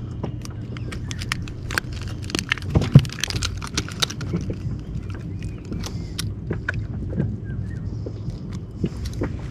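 A motor's steady low hum, with a run of sharp clicks and knocks about two to four seconds in, the loudest a single knock about three seconds in, then scattered clicks.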